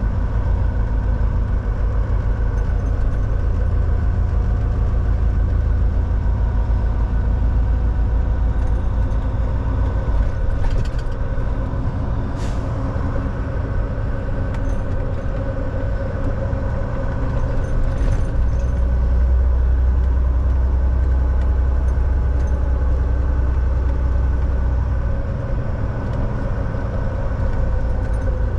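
Volvo semi truck's diesel engine running steadily, heard from inside the cab on the road, a deep drone that swells for several seconds past the middle. A few short clicks or knocks sound about halfway through.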